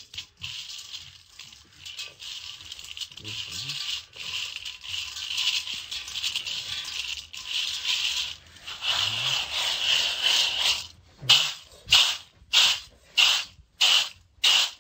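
Hand stirring and rubbing raw red-skinned peanuts in a stainless steel colander, a continuous dry rustling scrape. Near the end the colander is shaken in about six quick tosses, the peanuts rattling against the steel in an even rhythm.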